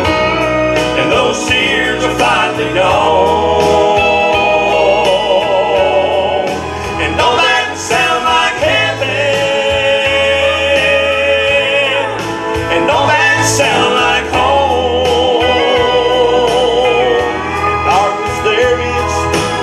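Southern gospel male vocal trio singing in harmony, with vibrato on held notes, over a steady instrumental accompaniment with a bass line.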